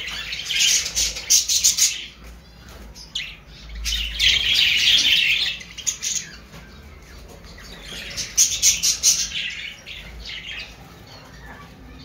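A flock of budgerigars chattering: fast high chirps and warbles, growing louder in three spells, about half a second in, around four seconds in and around eight seconds in.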